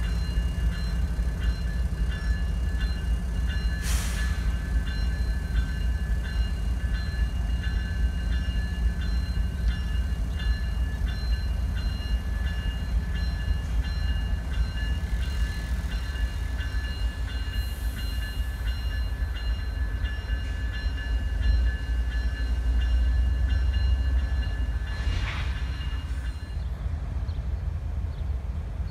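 CSX GE Evolution-series (GEVO) diesel locomotive running close by, with a heavy steady rumble that swells a little near the end. Over it is a steady repeating high ringing that stops shortly before the end, and there are two short sharp noises, one early and one near the end.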